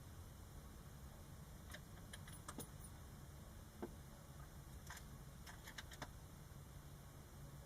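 Faint clicks and small metallic jingles in two short clusters, about two seconds in and again about five to six seconds in, over a low steady rumble.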